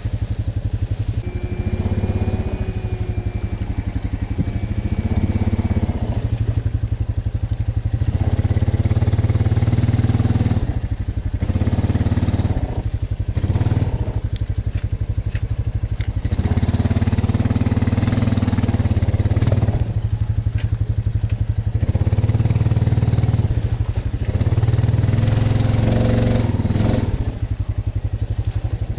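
Honda Rancher 420 ATV's single-cylinder four-stroke engine running at low trail speed, its note rising and falling with the throttle as it crawls over rocky ground. A few short, sharp knocks come through about midway.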